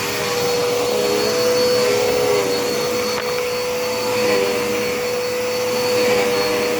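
Dirt Devil Endura Reach upright vacuum cleaner running steadily, a constant motor whine over the rush of suction.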